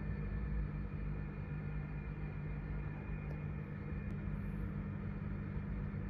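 Steady low mechanical hum, with a few faint clicks about three and four seconds in.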